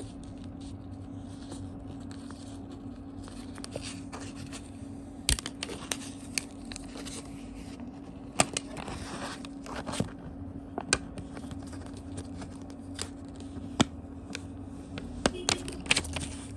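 A plotter-cut sticker sheet being peeled and weeded by hand: the waste film is pulled off its backing with crackling, scraping and soft tearing, and scattered sharp clicks, over a steady low hum.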